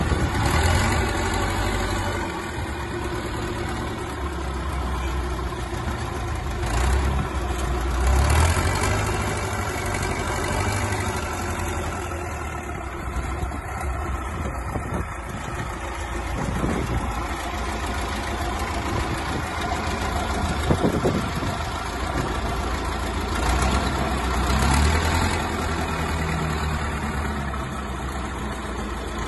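Old wheel loader's engine running steadily at low revs as the loader pushes a wheeled cart. The engine swells louder a few times, about eight seconds in and again near the end, as it is given throttle.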